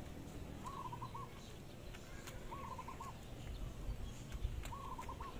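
A bird calling three times, each a short phrase of a few quick notes, about two seconds apart. Faint clicks of stranded wire being twisted by hand into a splice sound beneath it.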